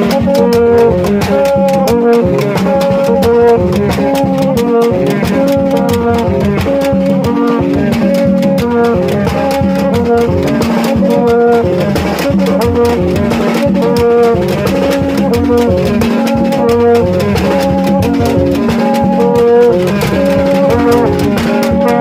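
Haitian rara band playing on the march: vaksen tube trumpets and flared metal konèt horns sound short repeated notes in an interlocking cycle over drums and rattling percussion.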